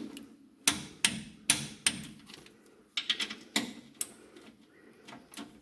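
Sharp metallic clicks and knocks, about a dozen at an irregular two to three a second, each ringing briefly, from a wrench tightening the lower bolts of a new front shock absorber.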